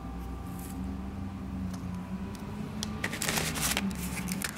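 Packaging being handled by hand: a few light clicks, then a short rustle about three seconds in, as a boxed lip crayon is lifted from a box lined with tissue paper. A low, steady hum runs underneath.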